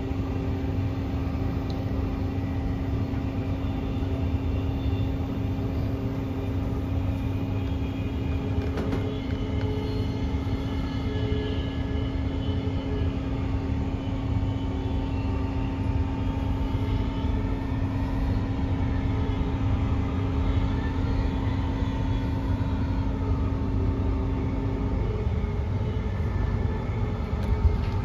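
Cabin noise inside a Queensland Rail NGR 700 series electric multiple unit running at speed: a steady low rumble of the wheels on the track, with a steady hum that stops a few seconds before the end.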